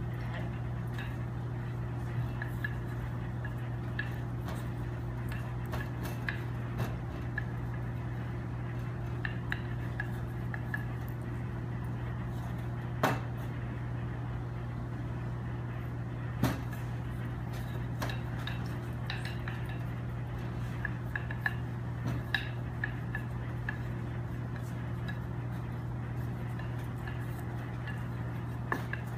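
Wooden rolling pin rolling out pâte brisée dough on a floured stainless steel counter, with scattered light clicks and knocks of the pin and two sharper knocks about halfway through, over a steady low hum.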